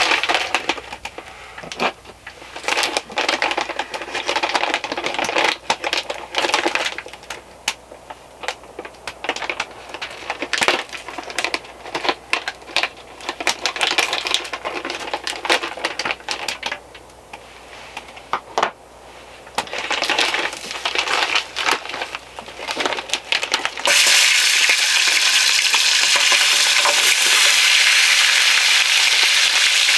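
Crinkling of a plastic food bag with scattered clicks and rattles, then, about six seconds before the end, a sudden steady sizzle as frozen sausage-and-potato skillet mix hits a hot pan and starts frying.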